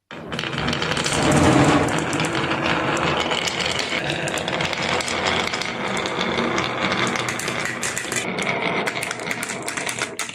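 Marbles rolling and clattering down a wooden marble run: a dense, continuous rattle of many small clicks that starts abruptly and stops suddenly at the end.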